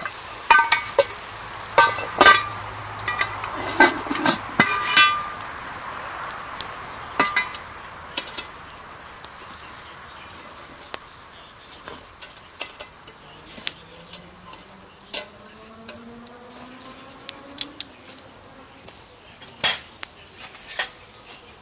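Clinks and clanks of a cast-iron Dutch oven, its lid and wire bail handle being handled, each with a short metallic ring, several close together in the first five seconds. After that, the open wood fire crackles with scattered sharp pops.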